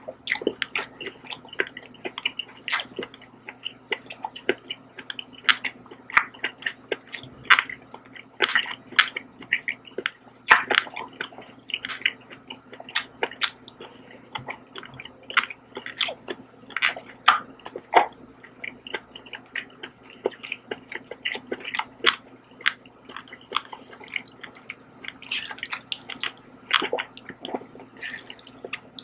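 Close-miked chewing of a mouthful of black-bean-sauce (jjajang) noodles: an irregular stream of short wet mouth clicks and smacks.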